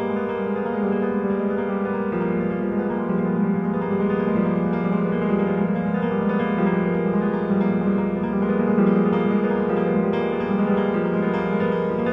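Steinway & Sons grand piano played solo: fast, flowing notes over held chords, the harmony shifting every couple of seconds.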